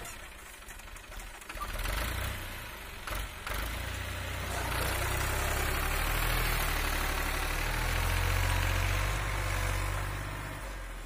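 Fiat 480 tractor's three-cylinder diesel engine pulling hard as it drags a levelling blade through loose sand, with a couple of sharp knocks about two and three seconds in. The engine grows louder from about four seconds in and fades near the end as the tractor draws away.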